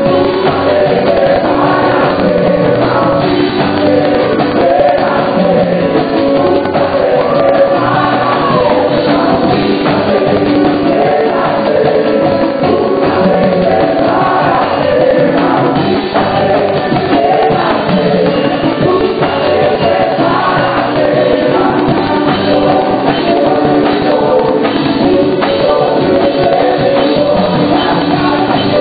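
Live gospel worship music: a woman leads on a microphone with backing singers joining her, singing a Spanish-language praise song over a band with percussion.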